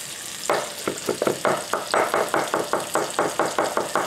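Chef's knife rapidly chopping garlic on a wooden cutting board, starting about half a second in at roughly six even chops a second, over a steady sizzle of bacon frying in a skillet.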